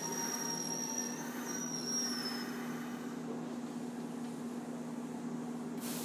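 Cabin of a stationary Kintetsu Series 21 electric train car: a steady low electrical hum with ventilation noise while the train stands at a station. A faint high wavering whine fades out about two and a half seconds in, and a hiss starts just before the end.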